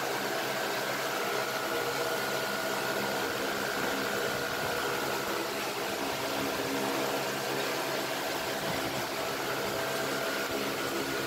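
Steady machinery hum: several held tones over an even hiss, unchanging throughout.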